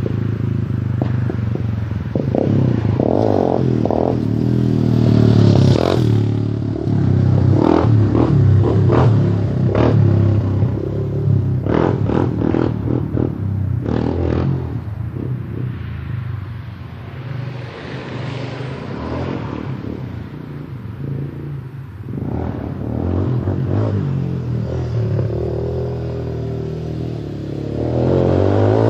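Honda TRX 250X quad's single-cylinder four-stroke engine running through a Two Brothers aftermarket exhaust, revving up and down, with scattered clattering knocks.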